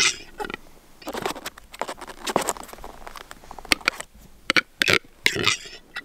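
Male western capercaillie in display at close range: a scatter of sharp clicks and several short noisy calls.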